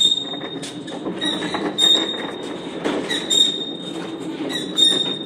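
Heavy corrugated steel door being swung open and shut, its hinges giving a series of high metal-on-metal squeals over a low grinding rumble.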